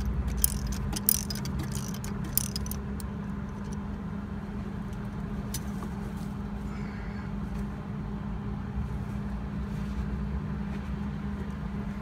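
Sharp metallic clicks and clinks of a ratchet wrench and tools on an exhaust manifold stud during the first couple of seconds, over a steady low machine hum that runs throughout.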